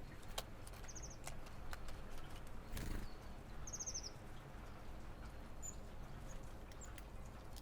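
Great tits at a feeder: scattered sharp pecking taps, a thump about three seconds in, and twice a short run of quick high notes.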